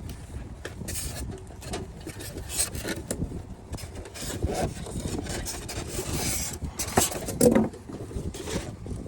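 Hands handling PC parts and their packaging: irregular rubbing, scraping and rustling with scattered clicks and knocks, the loudest knocks about seven seconds in.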